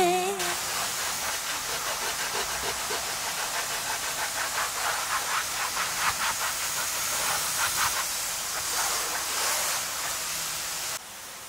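A towel scrubbing a wet, textured car floor mat in quick, regular rubbing strokes over a steady hiss.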